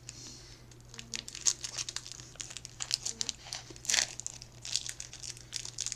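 Plastic chocolate-bar wrapper crinkling as it is handled and unwrapped, in a run of irregular crackles.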